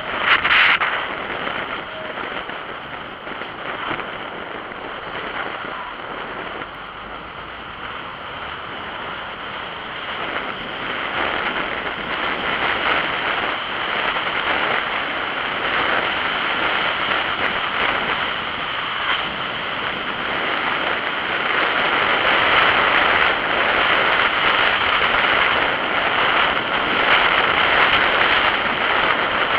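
Wind rushing over a cycling camera's microphone, along with road noise, while the bike rides along. There is a brief loud burst right at the start, and the rushing grows louder from about ten seconds in as the bike picks up speed.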